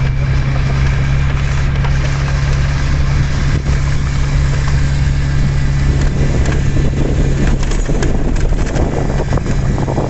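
Vehicle engine running steadily with tyre and road noise from driving on a dirt road, heard from inside the cab. From about six seconds in the rumble of gravel under the tyres grows rougher, with scattered rattles and knocks.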